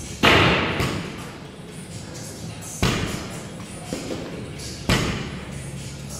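Barbell loaded with bumper plates dropped from overhead onto the gym floor three times, about two seconds apart, the first thud the loudest, each fading out briefly after the hit.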